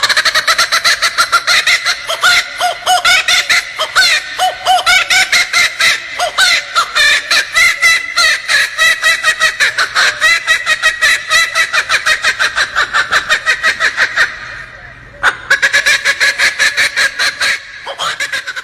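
A bird's long, rapid run of repeated calls, about five notes a second, with a brief pause about fourteen seconds in before it resumes.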